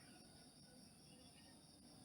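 Near silence: a faint, steady high-pitched hiss, with no clear snore or breath heard.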